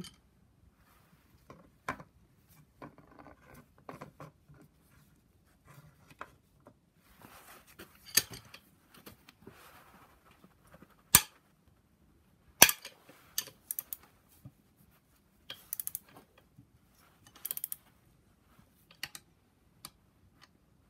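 Irregular metallic clicks and clinks of hand tools and loose parts on a BMW N54 engine's cylinder head while the camshaft bearing cap bolts are worked loose, with two sharp, louder clanks a little past the middle.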